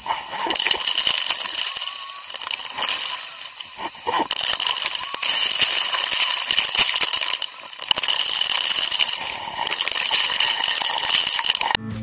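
Rushing water at a waterfall pool: a loud, even hiss full of small crackling ticks, with no deep rumble and a few steady high tones running through it.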